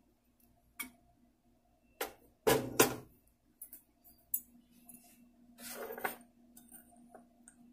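A few sharp clinks and knocks of kitchen utensils, the loudest pair about two and a half seconds in and a longer scrape near six seconds, over a faint steady hum.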